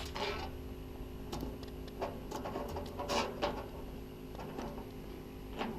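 Scattered light clicks, taps and rustles at irregular spacing as live bait shrimp are handled, over a faint steady hum.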